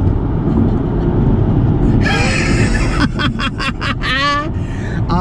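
Steady low road and engine rumble inside a car at highway speed. In the second half there are a few short sharp sounds and a brief rising tone.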